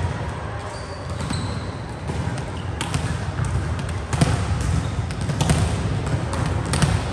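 Volleyballs being struck and passed during a warm-up: several sharp slaps of hands on the ball and balls hitting the court floor, the loudest about four seconds in, over the general din of the gym hall.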